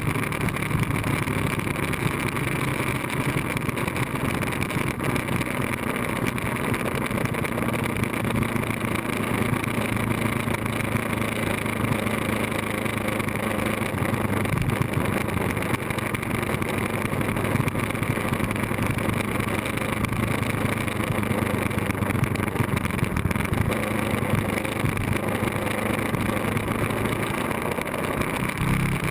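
Ducati 1098S sportbike's V-twin engine running at a steady cruise, heard from a camera mounted on the bike, under a constant rush of wind and road noise. The engine note shifts near the end.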